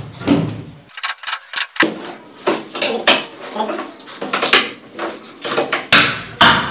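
Steel locking clamps clinking and clattering against each other and the wooden panel, many sharp metallic clicks as they are picked up, opened and set.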